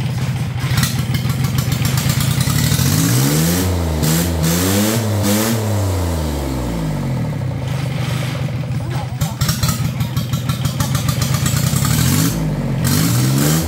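A new small diesel boat engine, just pull-started, running steadily with fast firing pulses. Its speed swings up and down about three seconds in and again near the end.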